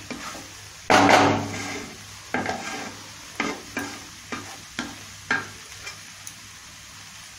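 Wooden spatula stirring and scraping thick mashed vegetables in a nonstick wok, over a low sizzle. The loudest scrape comes about a second in, then short strokes follow about two a second and die away near the end.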